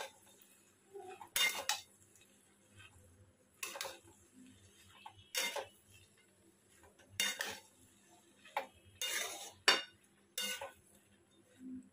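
Metal spatula scraping and knocking against a metal kadai as chopped bottle gourd is stirred into the spiced dal, in short strokes spaced irregularly a second or two apart.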